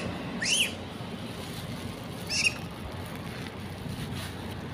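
Two short, high squealing calls from long-tailed macaques, each rising and falling in pitch, about two seconds apart.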